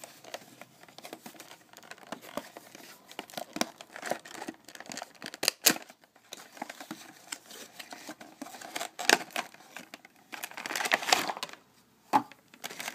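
Toy packaging, a cardboard box and a clear plastic tray, being opened by hand: irregular tearing, crinkling and sharp clicks, with a denser spell of plastic crinkling about ten seconds in.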